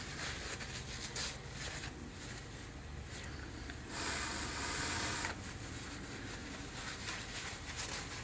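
Faint clicks and rubbing from hand work, then about four seconds in a loud hiss lasting about a second and a half with a thin high whistle in it, like a spray or a blast of air, over a steady low hum.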